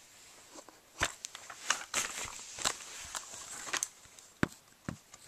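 Handling noise: an irregular run of clicks, knocks and rustling starting about a second in, then two sharp knocks near the end.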